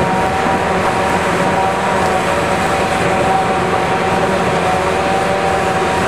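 Forage harvesting machinery, a John Deere self-propelled forage harvester and a tractor pulling a forage wagon, running steadily while chopping corn silage: a loud, even machine drone with a steady high whine.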